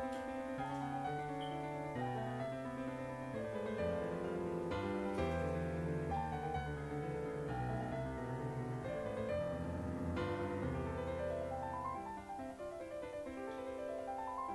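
Background piano music: a slow, gentle melody of held notes, with rising runs of notes twice near the end.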